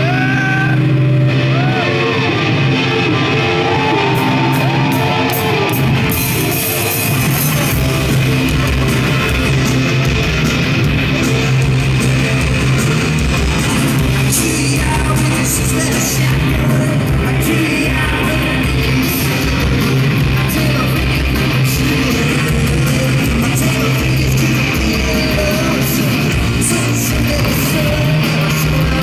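Rock band playing live in a concert hall, heard from within the crowd: electric guitars, bass and drums, with cymbals and heavier drumming filling in a few seconds in.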